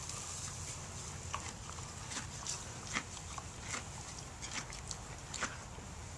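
A Thoroughbred racehorse making soft, irregular clicks and small knocks, about a dozen scattered through, over a steady low hum.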